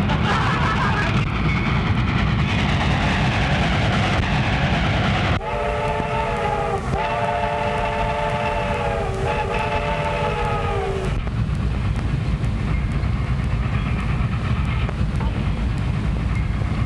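A train running with a steady rumble, and a train whistle sounding three long blasts in close succession about five seconds in.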